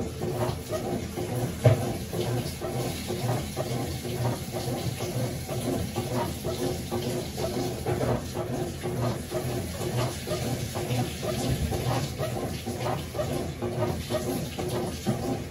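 Consul 12 kg CWS12 top-loading washing machine working a load, water swishing with a low pulse about twice a second and a sharper knock about 1.7 s in.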